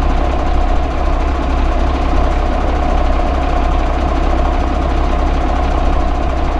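Asphalt distributor truck's engine and machinery running steadily: a constant low hum with a steady mid-pitched whine over it.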